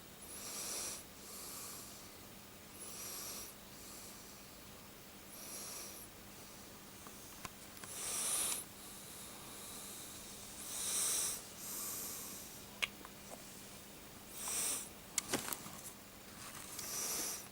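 A person breathing heavily close to the microphone: slow, hissing breaths every two to three seconds. A few sharp clicks come about two-thirds of the way through.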